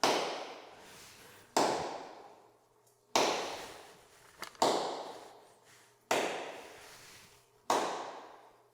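Six sharp hand claps about a second and a half apart, each ringing out in a long reverb tail that fades over a second or more in a cave. The claps serve as impulses for capturing the cave's reverb.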